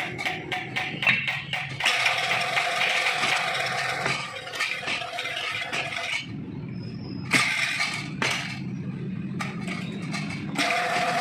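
Metal tools and engine parts clinking and tapping: a quick run of sharp clicks at first, then scattered knocks over a steady mechanical background noise.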